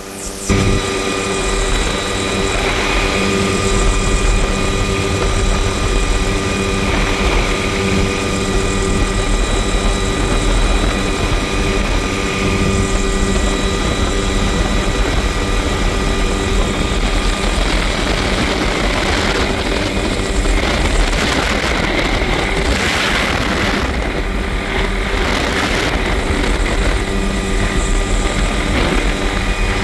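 Tour helicopter in flight with its doors off: steady rotor and turbine engine noise with constant high whining tones over a low rumble. Wind buffets the open cabin in gusts through the second half.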